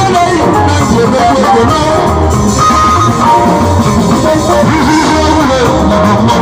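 Loud band music played through loudspeakers: guitar lines over a deep, pulsing bass.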